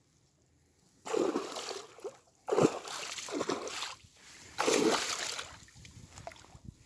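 A hooked pike thrashing at the water's surface close in at the bank, in three bursts of splashing.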